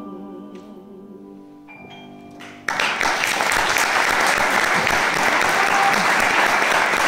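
The closing piano notes of a song ring and fade. About a third of the way in, audience applause breaks out suddenly and keeps going loudly.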